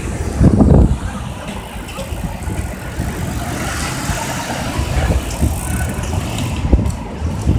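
City street traffic, cars passing through an intersection, recorded on a smartphone's microphone that sounds overloaded and is buffeted by light wind. A loud low rumble comes about half a second in.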